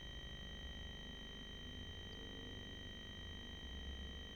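Faint, steady electronic whine made of several fixed high tones over a low hum, from the nest-box camera's recording equipment; no bird calls.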